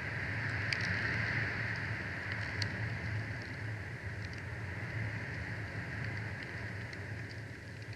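Steady outdoor hiss over a low hum, with a few faint ticks.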